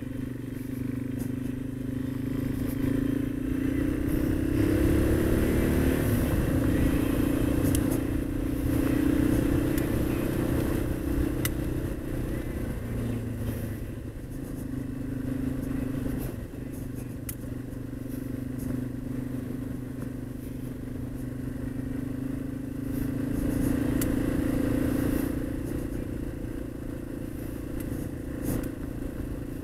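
Yamaha XT225's single-cylinder four-stroke engine running under way on a gravel road, its pitch rising about three seconds in, dipping briefly around the middle and climbing again a little after twenty seconds as the throttle changes. Scattered clicks from gravel under the tyres.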